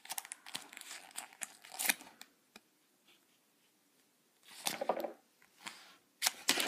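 A handmade duct tape wallet being handled: its taped surfaces crinkle and rustle, and cards slide in and out of its pockets, with scattered clicks. The rustling comes in short spells with a pause of about two seconds in the middle.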